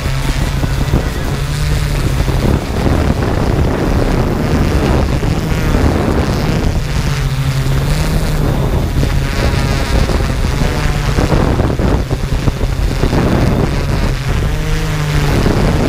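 Yuneec Typhoon G drone's electric motors and propellers running steadily, heard from the GoPro slung beneath it, with a low hum that shifts slightly in pitch as the drone manoeuvres and wind rushing over the microphone.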